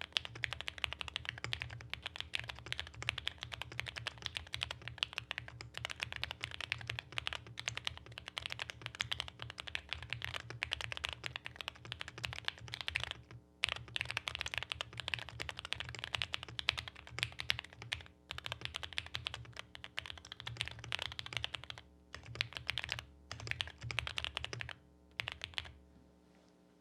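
Fast typing on a QK65 mechanical keyboard with stock JWICK Black V2 linear switches, unlubricated and without switch films: a dense run of keystroke clacks with a few short pauses. The typing stops near the end.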